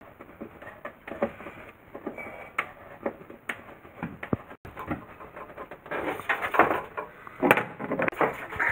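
Irregular knocks and clicks of hands handling the plastic parts of a vanity cabinet during removal, busier near the end.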